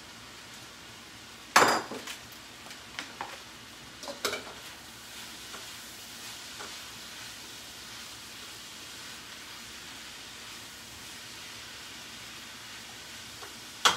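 Chopped sweet potato, kale and peppers sizzling steadily in a pan on the stove. A sharp knock comes about a second and a half in, then a few lighter knocks and clinks of a utensil in the pan, and two loud knocks near the end.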